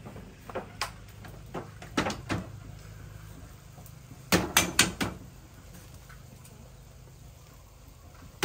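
Kitchen knocks and clatters: a few scattered taps, then a quick run of four sharper knocks about halfway through and one more at the end, over a low steady hum.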